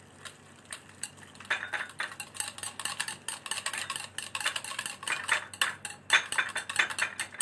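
A whisk beating a thick yogurt marinade in a steel bowl, its wires clinking against the metal in quick, rapid strokes that start about a second in. The marinade is being whisked until no lumps remain.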